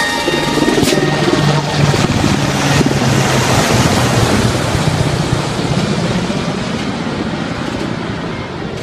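Helicopter flying low overhead: loud rotor and engine noise that fades over the last few seconds as it moves away.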